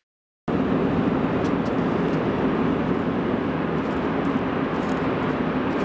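Steady low rumble of metro station ambience with a hum underneath, cutting in about half a second in after a moment of silence.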